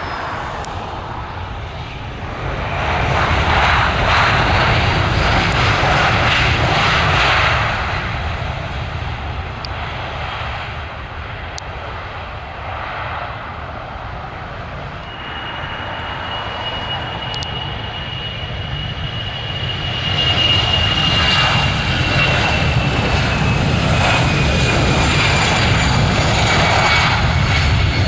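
Airbus A320 jet engines on the runway. About two seconds in, the engines swell to a loud roar for some five seconds and then ease off, as with reverse thrust on landing rollout. From about fifteen seconds they build again with a high whine that slowly falls in pitch, growing louder from about twenty seconds as the aircraft runs at takeoff power.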